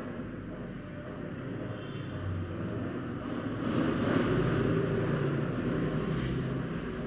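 Background noise of a passing vehicle: a steady low rumble swells about four seconds in and fades again.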